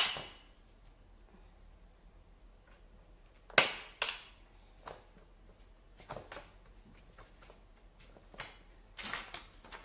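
Sharp clacks and knocks from the frame of an Ab Tomic ab exerciser being handled and pushed by hand. There is a loud clack at the start and another about three and a half seconds in, then a string of lighter knocks and taps.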